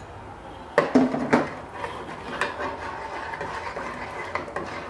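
A spoon stirring milk in a metal pot, knocking sharply against the pot twice about a second in, then scraping and rubbing around it with small clicks.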